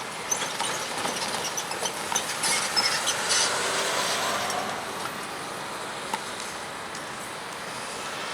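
Railroad track maintenance machine running, with a run of sharp metallic clanks and clicks over the first few seconds, then a steady engine noise.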